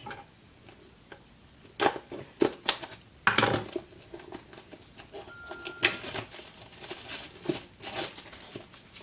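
Hands handling a small plastic fishing tackle box: a scattering of sharp clicks and knocks with a brief rustle, as of the lid and catches being worked and the box turned over.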